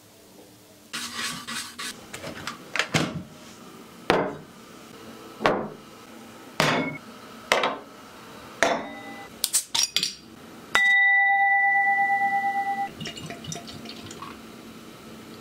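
A run of sharp knocks and cracks about a second apart, then a steady two-note ringing tone for about two seconds, then beer pouring into a glass near the end.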